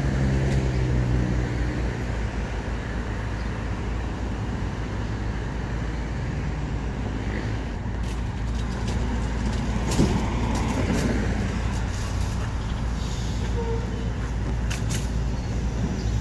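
MTA hybrid-electric transit buses running at a bus stop amid street traffic: a steady low engine drone with traffic noise. A single sharp knock comes about ten seconds in.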